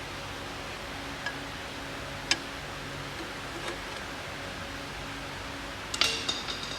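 Metal tools and engine parts clinking during engine teardown: a few single sharp clicks, then near the end a quick cluster of louder metallic clinks that ring briefly, over a steady hum and hiss.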